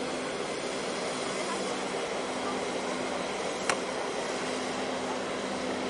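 Steady low drone of a large container ship's machinery as it passes close by, under an even hiss, with one sharp click a little past halfway.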